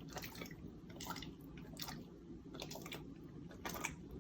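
Boxer dog chewing and tearing at basil leaves: faint, irregular mouth clicks and smacks.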